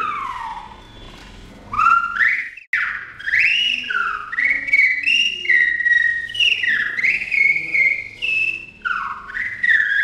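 A whistle standing in for a man's speech, its pitch gliding up and down in the rhythm and intonation of talk. It opens with a long falling glide, pauses briefly, then runs on in quick rising and falling phrases.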